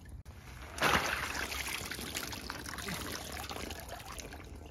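Water pouring and splashing. It starts suddenly about a second in and slowly trails off.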